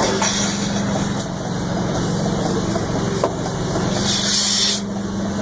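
A steady mechanical hum from running machinery, with a brief loud hiss about four seconds in.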